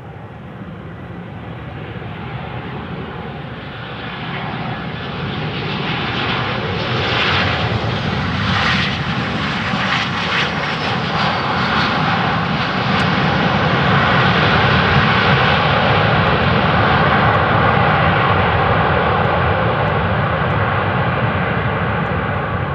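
Boeing 737-800's CFM56-7B turbofan engines on landing: a jet noise that grows steadily louder as it comes in and touches down about halfway through, then stays loud as it rolls out down the runway.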